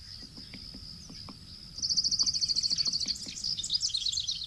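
Small songbirds singing: a loud, rapid high trill about two seconds in that lasts a little over a second, with softer high chirps around it.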